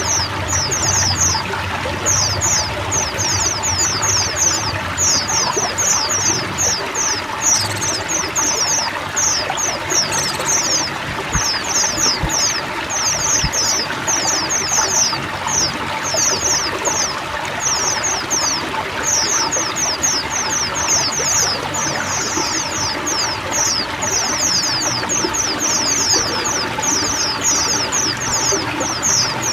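Chorus of many white-eyes (pleci) singing, a dense stream of quick, high, falling twitter notes, over steady pouring, trickling water.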